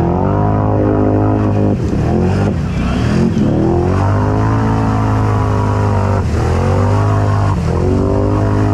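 Can-Am Outlander 650 XMR's V-twin engine, tuned and fitted with an RJWC Krossflow exhaust, revving up and down as the ATV is ridden, the revs dropping sharply off the throttle about four times.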